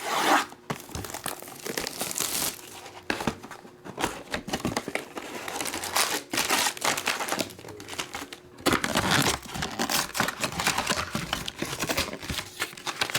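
Trading card pack wrapper being crinkled and torn open by hand, a continuous rustling with a brief pause about eight and a half seconds in.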